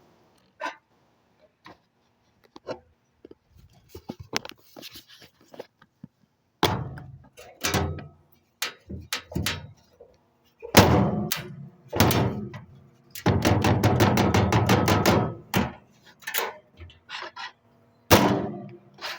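A string of irregular knocks and thuds, with a fast rattling run of clicks, about eight a second, lasting a couple of seconds past the middle.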